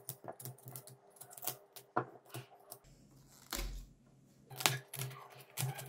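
Small kitchen knife cutting broccoli and cauliflower into florets on a cutting board: irregular crisp snaps and clicks of the blade through the stems and tapping the board, with a dull thump a little past halfway.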